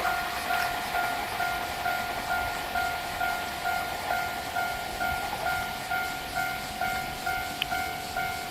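Japanese railway level-crossing warning bell ringing, an even two-tone electronic clang repeating about twice a second. The noise of a passing train dies away in the first moment.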